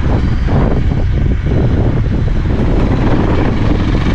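Wind rushing over the microphone of a camera on a moving motorcycle, with the motorcycle's engine running underneath, steady throughout.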